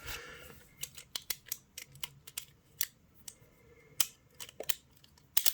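Beyblade Burst top parts being fitted together by hand: a short rustle, then a string of sharp, irregular clicks and rattles as the plastic and metal pieces snap and lock into place.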